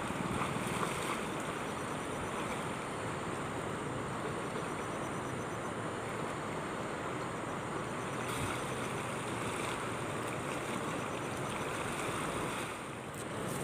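Steady rush of a swift river running high after a flood.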